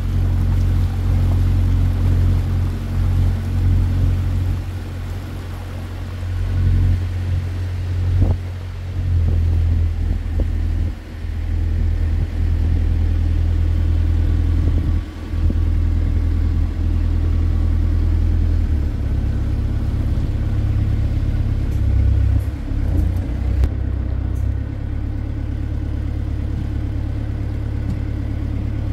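Small water taxi's engine running under way, a steady low rumble whose note changes about two-thirds of the way through.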